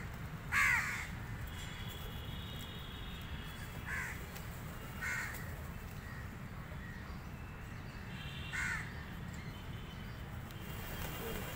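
House crows cawing: about five short, harsh caws spaced a few seconds apart, the loudest about half a second in.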